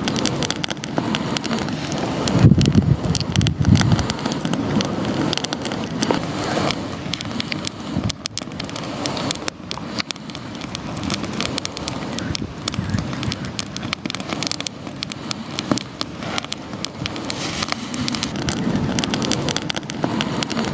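Campfire crackling: wood burning with dense, irregular pops and snaps throughout.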